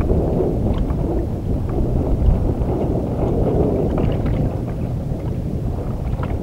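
Wind buffeting the microphone, a steady low rumbling noise, with a few faint small clicks.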